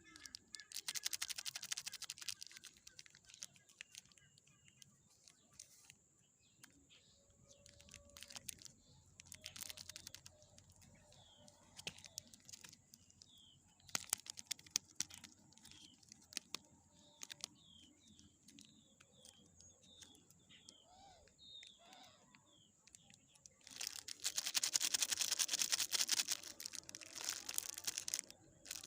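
Plastic snack wrappers crinkling and tearing in several bursts, the longest and loudest near the end. Short bird chirps sound faintly in the middle.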